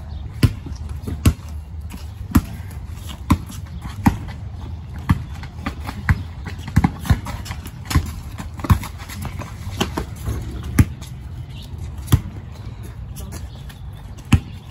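A basketball bouncing on a concrete driveway in a pickup game: sharp, irregular thumps roughly once a second, some in quick pairs.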